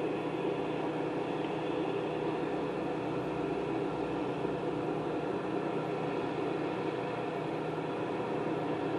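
Steady, unchanging mechanical drone, like an engine or machine running at constant speed.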